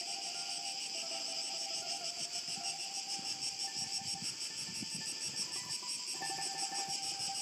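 A chorus of insects chirring in rapid, even pulses, with faint held tones underneath that shift in pitch now and then.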